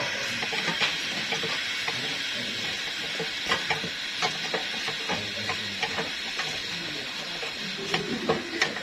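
Irregular light metallic clicks and knocks of a hand tool working on the AC condenser's mounting bolts, over a steady hiss.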